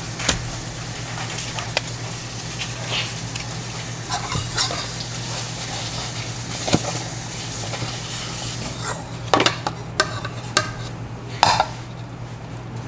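Cutlery and bowls clinking and scraping, with a run of sharper clinks about nine to twelve seconds in, over a steady low hum.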